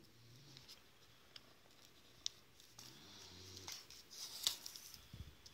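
Faint handling sounds of hand beadwork: soft rustling of the paper-backed piece and a few light clicks as the needle and thread are drawn through and the work is turned over.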